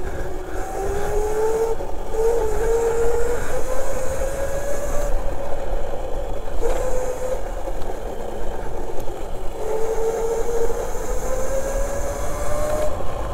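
Burromax electric minibike under way, its motor and drive whining with a pitch that climbs as it gathers speed, drops and fades briefly about halfway, then climbs again. Wind rushing over the microphone throughout.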